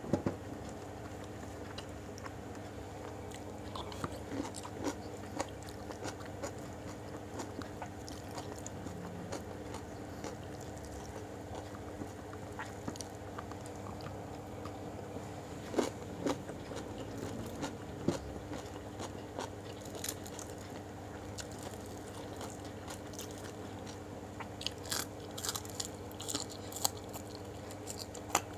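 A person eating a meal of rice, jengkol and fried chicken by hand close to the microphone: scattered chewing and crunching clicks, busier in the second half, over a steady low hum.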